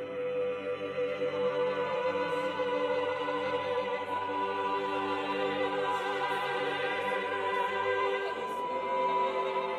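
Mixed chamber choir singing a cappella: long, steady held notes stacked into a slow chord, with a new note entering at the start. The sound rings in a cathedral's reverberant acoustic.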